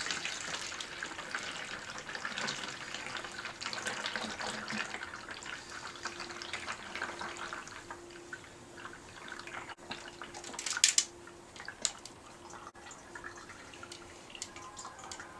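Thick oil being poured into a filler neck, a steady trickle that tapers off after about eight seconds, then a sharp click about eleven seconds in and a lighter one a second later.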